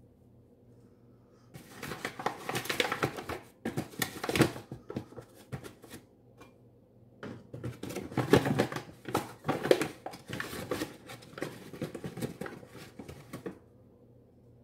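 Hands mixing sticky yeast bread dough in a ceramic bowl: a quick, irregular run of squelches and knocks in two stretches, with a short pause about halfway.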